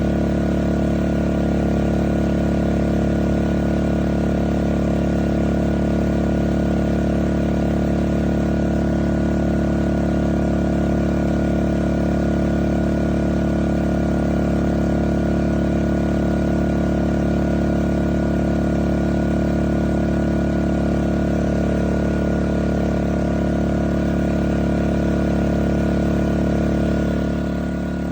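Westinghouse dual-fuel portable inverter generator running at a steady speed, with a slight drop in level near the end.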